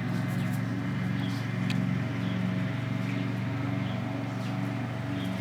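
A steady low mechanical hum, like an engine running, with a slight even pulsing and a few faint ticks.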